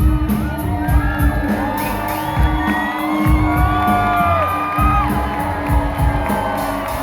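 Live rock band playing an instrumental stretch, with a driving bass-and-drums groove under a steady held note, and the audience whooping and cheering over it.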